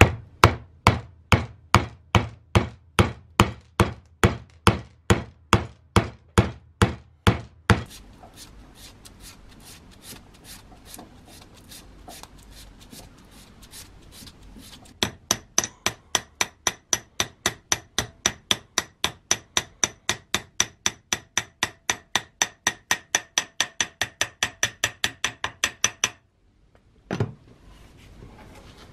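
Steady hammer blows on the sledgehammer, about two and a half a second, then a quieter stretch of an abrasive pad scrubbing the steel head. A faster run of ringing metallic blows follows, about three and a half a second, cutting off suddenly, and a single knock near the end.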